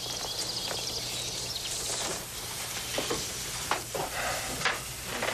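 Outdoor background ambience: a steady hiss with faint high chirps and a few scattered clicks, dropping away near the end.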